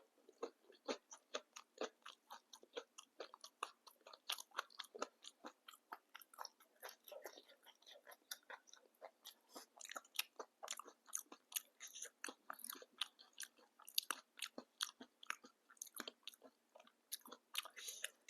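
Close-mic chewing of papdi chaat: crisp fried papdi wafers crunching in the mouth along with wet, saucy chewing, a steady run of sharp crunches about three a second that starts suddenly.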